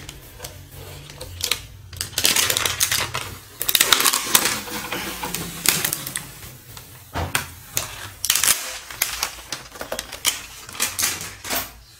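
Clear plastic protective film crinkling and crackling as it is handled on a car amplifier's casing, in bursts of rapid crackles. The crackling is busiest from about two to five seconds in and again near the end.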